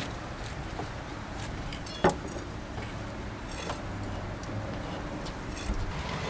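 A single sharp knock about two seconds in, then a brief run of light metallic clinking, over a steady low hum.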